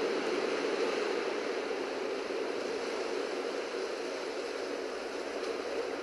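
Ocean surf heard as a steady, even rush, with no single wave standing out.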